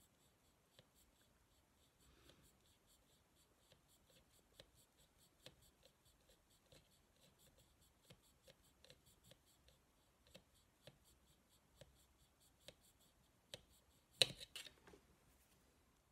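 Scalpel blade sawing back and forth on a plastic lug inside a model locomotive's body shell: faint, regular scraping strokes, roughly one or two a second. About fourteen seconds in comes a louder clatter as the shell is handled.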